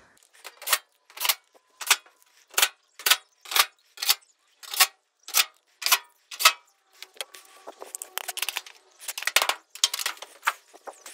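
Screwdriver fastening the clothes dryer's sheet-metal rear cover: a run of about a dozen sharp metallic strokes, roughly two a second, then quicker, irregular clicking and rattling near the end.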